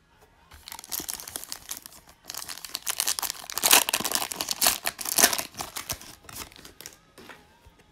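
A foil Panini Prizm trading-card pack being torn open and its wrapper crinkled by hand: a run of crackling, rustling tears, loudest in the middle, dying away near the end.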